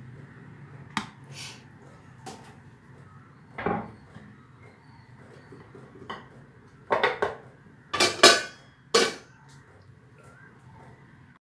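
Clinks and knocks of kitchen dishes and utensils: a few light taps spread out, then a cluster of louder clatters about seven to nine seconds in, over a steady low hum.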